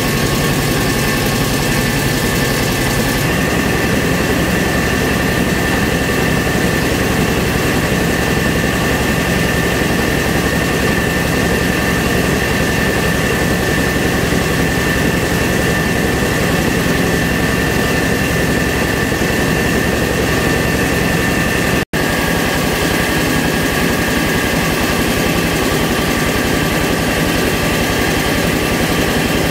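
Engine-driven mobile rice mill running steadily as grain passes through the polisher, a constant machine din with a steady whine over it. It drops out for a moment about 22 seconds in.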